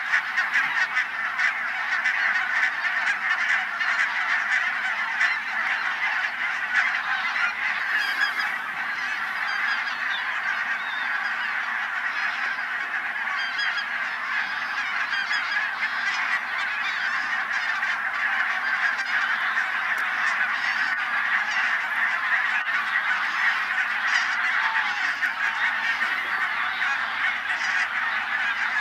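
A large flock of geese calling all at once, a dense unbroken chorus of overlapping calls that holds at a steady level throughout.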